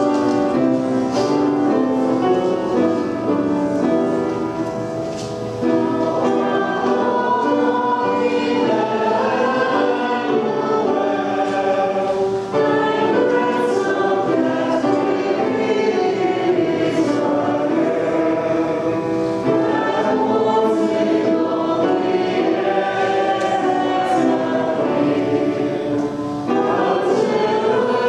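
A church congregation singing a hymn together, many voices holding and moving through sustained notes.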